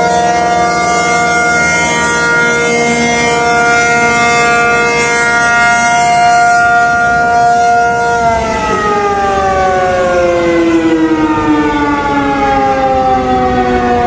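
Tornado warning sirens sounding a steady chord-like tone. About eight seconds in they begin winding down, the pitch falling slowly and steadily.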